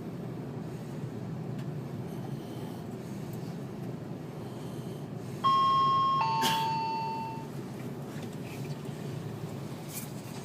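A train carriage's two-tone chime, a higher note then a lower one that fades away, sounding about halfway through, the loudest thing here. Under it runs the steady low rumble of the moving train.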